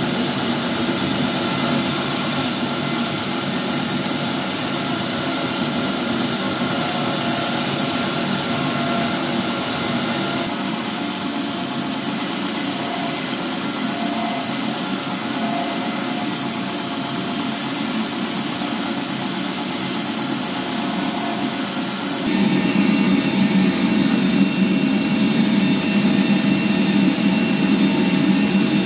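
Belt grinder running, its abrasive belt grinding a steel sword blade with a steady hiss and motor hum. About 22 seconds in the sound shifts abruptly, growing louder with a stronger low hum and a thin high tone.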